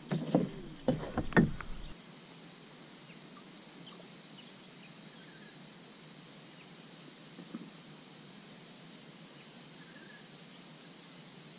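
A few knocks and clatters of the paddle and gear against the plastic kayak in the first two seconds. Then a faint, steady outdoor background with a thin high hiss, and a single small tap partway through.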